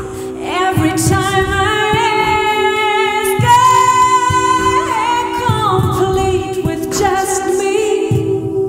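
A woman singing live into a microphone, gliding between notes and holding one long high note in the middle, over a steady low accompaniment.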